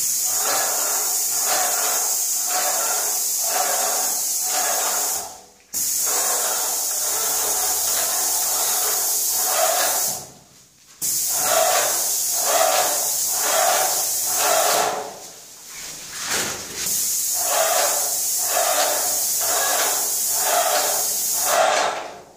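Graco airless paint sprayer spraying wall paint: a loud, steady hiss from the gun tip that stops briefly about three times as the trigger is let go. The sprayer's pump pulses underneath at about one and a half beats a second.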